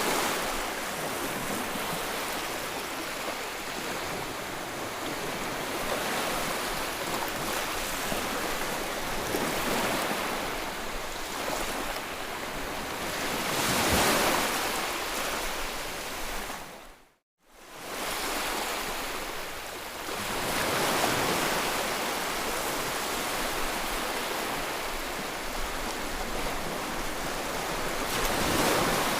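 White noise for soothing a colicky baby: a steady hiss that swells and ebbs like surf every several seconds. It cuts out to silence for an instant about seventeen seconds in, then resumes.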